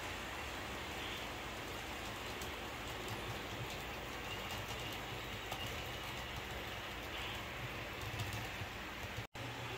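Model train running on the layout: a steady low hum with light, irregular clicking of the wheels on the track. The sound drops out for an instant near the end.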